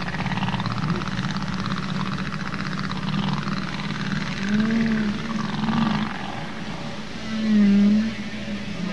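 Humpback whale song: low moans and rising and falling swooping calls over a steady underwater rumble, with louder calls about halfway through and again near the end.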